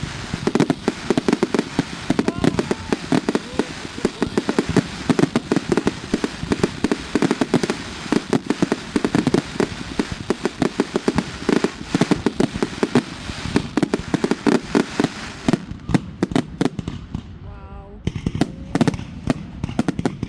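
Fireworks display going off in a dense, rapid string of bangs and crackles that thins out about three-quarters of the way through.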